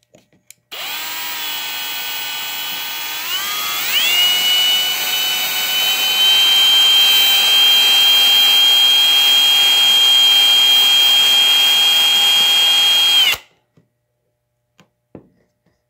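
Electric drill spinning a cut cotton swab loaded with buffing compound inside a carburetor's brass needle seat, polishing the seat so the needle will seal and the carburetor stop flooding. The motor whine starts about a second in, rises in pitch as the drill speeds up at around four seconds, runs steadily, then stops suddenly near the end.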